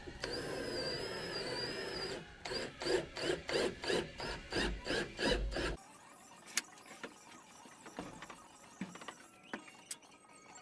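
Workshop tool working a piece of Huon Pine: a steady whine for about two seconds, then quick rhythmic rasping strokes, about three a second. The strokes stop a little past halfway, leaving a few light clicks and knocks.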